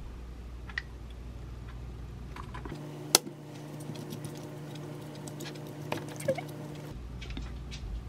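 A metal spoon lightly clicking and scraping against a ceramic bowl as sauce is spread over the food, with one sharper clink about three seconds in. A low steady hum starts near the same moment and stops about a second before the end.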